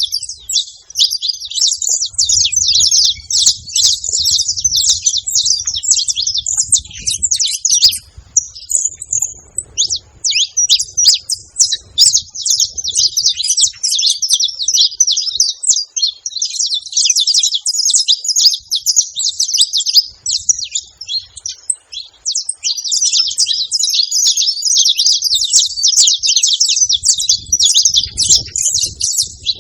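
Several saffron finches chirping and singing together in a dense, overlapping stream of quick high notes, with a brief lull about eight seconds in.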